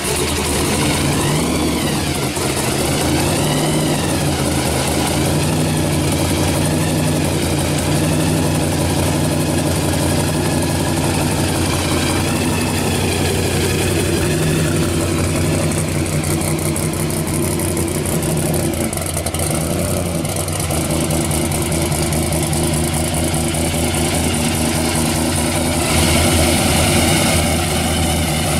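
Supercharged V8 in a blown third-generation Chevrolet Camaro pro street car idling steadily, with a slight rise in level near the end.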